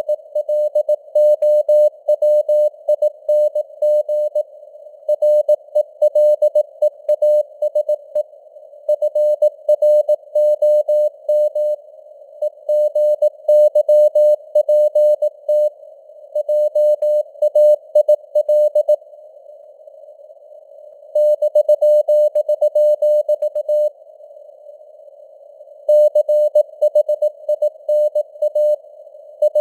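Morse code at 18 words per minute: a single mid-pitched tone keyed on and off in dots and dashes over a steady hiss, simulated CW radio reception with noise and fading signal strength. The sending pauses twice for about two seconds, about two-thirds through and again near the end.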